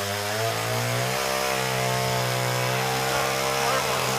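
Two-stroke chainsaw engine running steadily at a constant speed while felling a tree.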